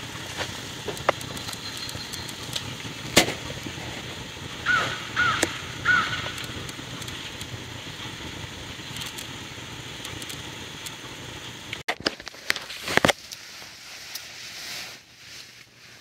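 Steady hum of distant highway traffic, with three short harsh calls in quick succession about five seconds in. Scattered sharp clicks, and a few loud snaps about twelve seconds in, after which the background grows quieter.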